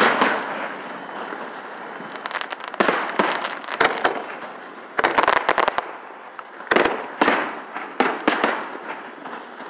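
Aerial fireworks shells going off close overhead: a series of sharp bangs, some in quick succession, over continuous crackling.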